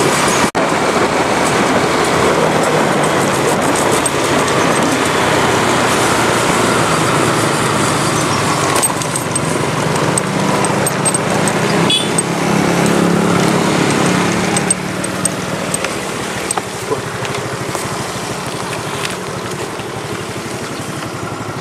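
Motor vehicle travelling along: steady engine and road noise, with an engine hum standing out in the middle and the sound getting quieter about fifteen seconds in.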